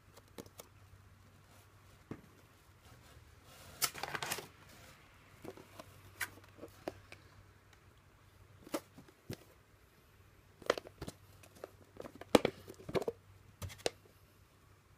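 Clear plastic containers being handled: scattered clicks and taps, with a longer rustle about four seconds in and a dense run of sharp clicks near the end.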